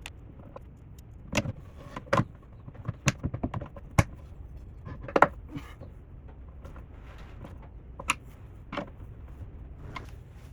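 Irregular sharp clicks and knocks from hand work on metal cabinet hinges and hardware, with a quick run of small ticks a little after three seconds in.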